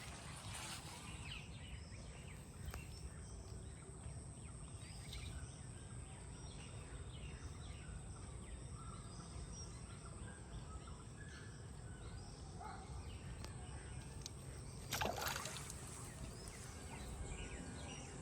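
Outdoor pond ambience: a low steady rumble with scattered short bird chirps and a steady high-pitched tone, and a brief louder noise about fifteen seconds in.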